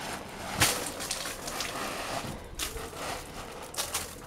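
Pooled rainwater being tipped off a sagging plastic sheet roof by a broom pushed up from below: a sudden loud hit about half a second in, then water rushing off and splashing for a couple of seconds, with the plastic sheet crackling.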